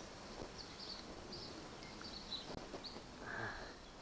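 Small birds chirping faintly in the background while a hand-lever grease gun is pumped into a trailer wheel hub's grease fitting, with one brief soft squelching noise a little over three seconds in.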